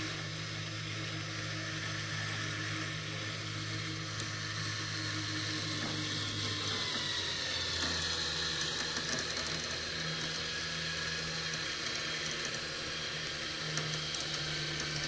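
A winch motor runs steadily, reeling in the cable that drags an old Allis-Chalmers tractor. Its pitch drops about seven seconds in, and a faint ticking comes in during the second half.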